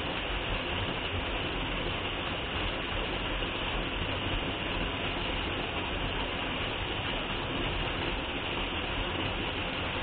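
Small waterfall pouring steadily into a rocky pool, an unbroken rushing of falling water.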